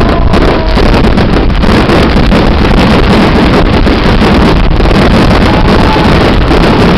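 Wind buffeting the microphone, a loud steady rumble with irregular crackle.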